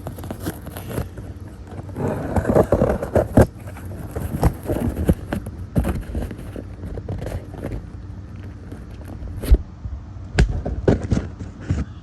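A mailed package being opened and handled by hand: irregular scraping and rustling with scattered sharp knocks, busiest about two to three and a half seconds in.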